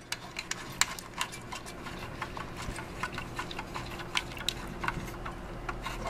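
Scattered light clicks and taps of small computer hardware being handled and fitted on an open test bench, at irregular intervals over a faint steady hum.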